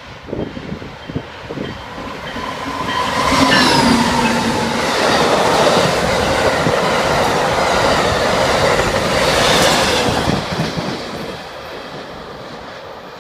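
Amtrak train passing through the station, its wheels clacking over the rail joints. The noise builds over the first few seconds, stays loud for about six seconds as the train goes by, then fades, with a brief falling tone about three seconds in.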